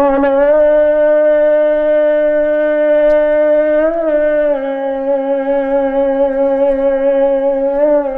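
A melody of two long held notes, the second slightly lower, each ending in a quick ornamental turn.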